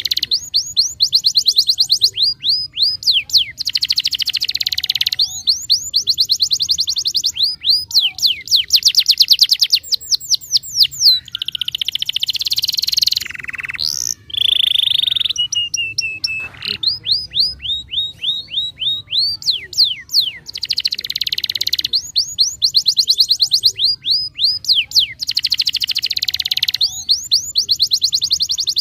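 Canary singing in full song: long, rapid trills of repeated down-slurred notes, phrase after phrase with short gaps, and a harsher, buzzy phrase about halfway through.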